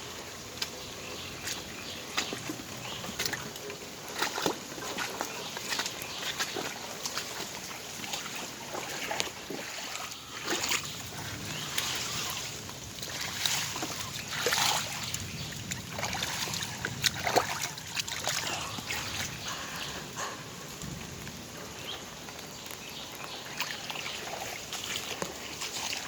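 Water sloshing and splashing in irregular bursts over a steady wash of water noise.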